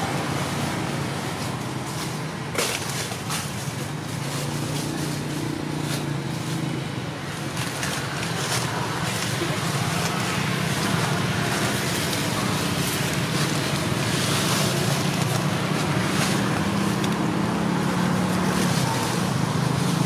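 Steady low rumble with a rushing hiss of background noise, broken by a few faint ticks.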